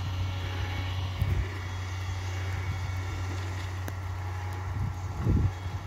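Heavy diesel plant running steadily at work: the low drone of an excavator and tipper truck engine, with a few short low rumbles, the biggest about five seconds in.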